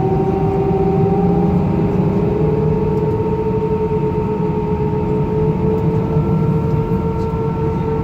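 Airbus A319 jet engines heard inside the cabin during taxi: a steady whine over a low rumble. The whine rises slightly in pitch in the first couple of seconds, and a second, higher tone joins about six seconds in.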